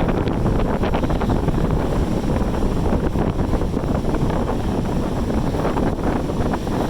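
Wind buffeting the microphone: a steady, loud, low rumbling noise.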